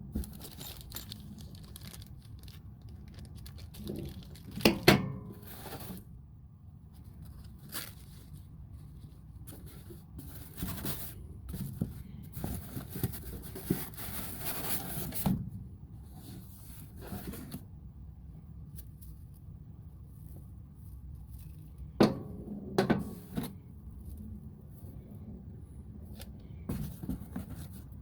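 Packaging being unpacked by hand: paper or plastic tearing and crinkling for several seconds midway, with a few sharp knocks as pieces are set down, in a small room.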